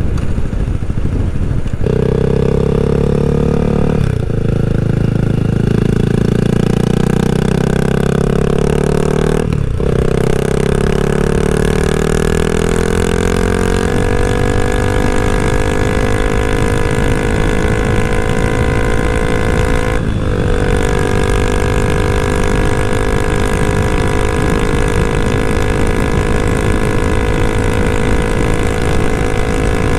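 Honda Rebel 300's single-cylinder engine accelerating through the gears. Its pitch climbs and drops back at each upshift over the first twenty seconds, then holds steady at highway cruising speed, with wind rushing over the microphone.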